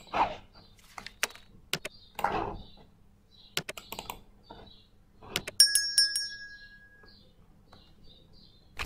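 Computer keyboard keys clicking in scattered, irregular keystrokes. A brief high-pitched chirp comes about five and a half seconds in.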